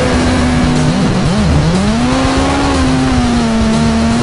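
Motorcycle engine running at steady revs over rushing wind. About a second in, the pitch wavers down and up, then it climbs back and holds a little higher before easing down near the end.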